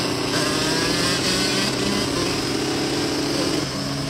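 Dirt bike engines running at a steady pitch while riding, heard from on the rider's own bike with other dirt bikes alongside.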